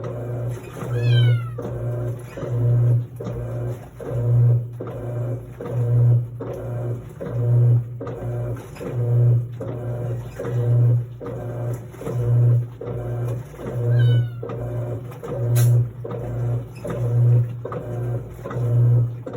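Electrolux LT09E washing machine agitating on its quick cycle: the motor hum swells and fades in an even rhythm about every second and a half as the drive reverses back and forth. Twice a brief high squeak falls in pitch.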